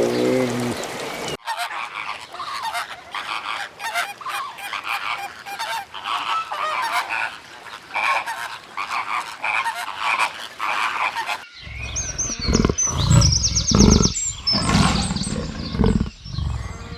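A flock of geese honking, with many short calls overlapping one another. Near the end it cuts to a different sound: low thuds and fast, high chattering calls.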